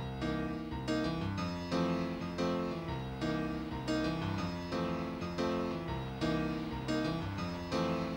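Background music on a keyboard instrument, a steady run of struck notes that each die away, a new note or chord about every half second.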